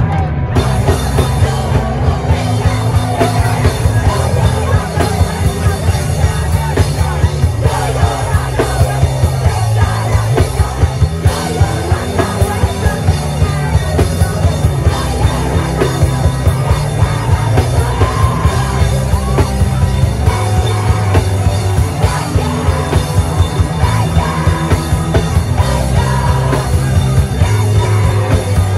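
Live punk rock band playing loud and fast, with a steady pounding drum beat, heard from inside the crowd at a small gig.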